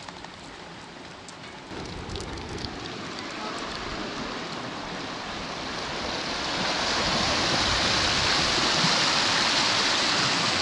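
Rushing water of river rapids over granite boulders, growing louder in two steps, about two seconds in and again around six seconds, then a steady loud rush. A few faint clicks in the first couple of seconds.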